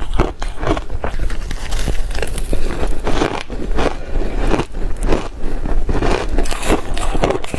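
Ice being bitten and chewed: a rapid, irregular run of crisp crunches.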